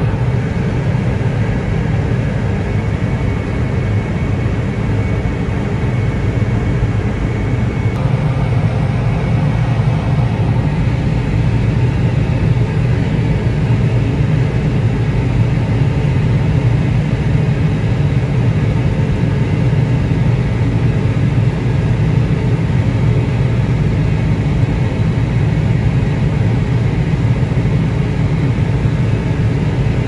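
John Deere CP690 cotton picker running steadily while picking cotton: a constant heavy engine rumble with no change in speed.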